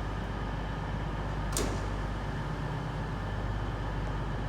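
Steady low hum of a railway station with trains standing at the platforms, with one sharp click about a second and a half in.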